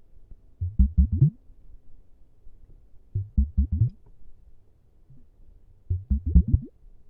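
ASMR prop sounds close to the microphone: three short groups of quick, low, muffled strokes, four or five to a group, each stroke rising a little in pitch, about every two and a half seconds.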